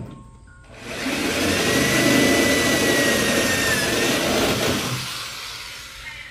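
Power drill boring through the steel body panel of a 1964 Chevrolet Impala, opening up an antenna hole a little larger. It runs for about four seconds with a steady whine, then eases off near the end.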